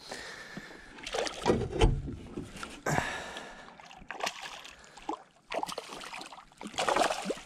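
Landlocked salmon thrashing and splashing at the surface as it is netted beside a small boat, with irregular splashes and several sharp knocks against the hull.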